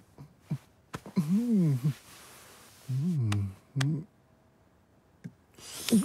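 Wordless cartoon vocal sounds in a man's voice: a long hum that rises and falls in pitch, a breathy hiss, then a shorter falling hum and a brief grunt, with a few small clicks.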